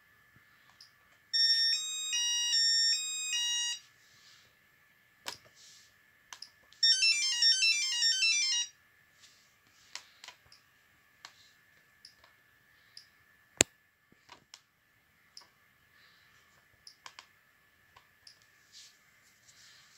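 Orisec CP-10 alarm keypad sounding its door-chime tones as the chime options are previewed: a short multi-note melody starting about a second in and lasting over two seconds, then a fast run of short notes a few seconds later. Between them and afterwards come light keypad button clicks, with one sharper click in the second half.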